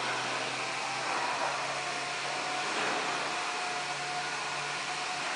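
Pad printing machine running: a steady whirring machine noise with a constant low hum and a faint steady tone above it.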